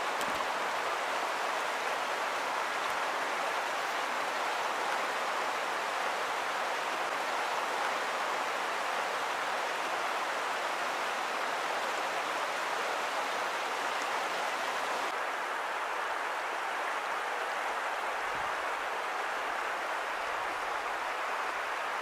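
Shallow rocky creek running over small cascades and riffles, a steady rush of water. The sound turns a little duller about two-thirds of the way through.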